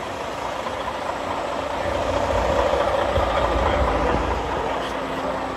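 Semi-truck's diesel engine running with a low rumble that swells partway through.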